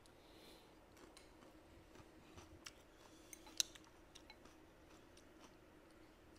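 Quiet eating sounds: faint chewing and light clicks of chopsticks, with one sharper click about three and a half seconds in, over a faint steady room hum.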